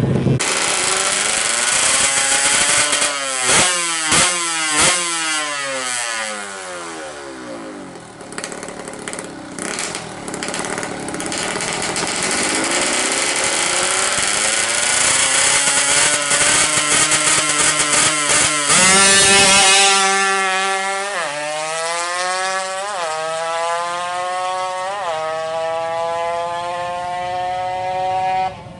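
Yamaha F1ZR 130 cc two-stroke drag-bike engine with an expansion-chamber exhaust. It first runs down in pitch as it slows, with three sharp loud cracks a few seconds in. Then it is revved and launched, the pitch climbing and dropping back at each of several gear changes as it accelerates.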